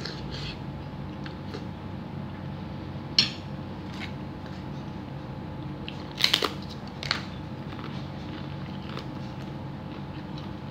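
Eating sounds: a crispy cracker bitten with a short cluster of sharp crunches about six seconds in, with a few quieter crunches and clicks of chewing before and after. A steady low hum runs underneath.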